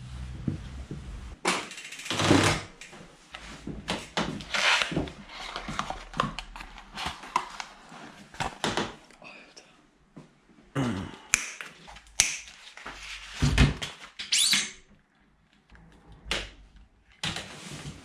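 Irregular clicks, knocks and short rustles from mountain-bike parts being handled and fitted during assembly, with a few louder knocks.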